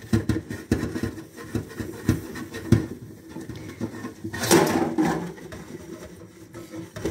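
Dishes being washed by hand in a kitchen sink: a run of small knocks and scraping as greasy dishes are scrubbed and handled, with a louder brief rush of noise about four and a half seconds in.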